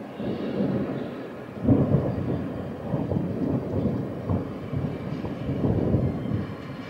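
Rolling thunder from a thunderstorm: a long low rumble that grows louder about two seconds in and keeps rolling.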